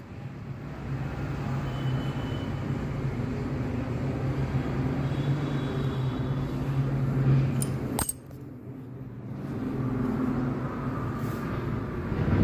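Tomato pieces sizzling in oil in a stainless steel pan while a metal spatula scrapes and stirs them, with a sharp clink of the spatula against the pan about eight seconds in. A steady low hum runs under most of it.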